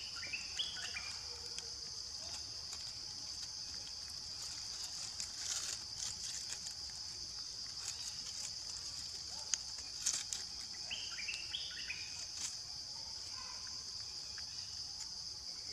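Steady high-pitched drone of insects in the surrounding trees, with light clicks and rustles of leaves and two brief runs of high chirping calls, one just after the start and one about eleven seconds in.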